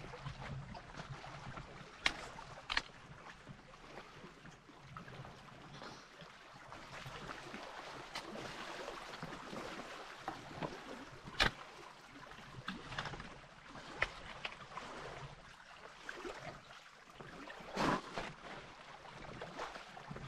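Small waves lapping and splashing against a rocky lake shore, with a few sharp knocks now and then.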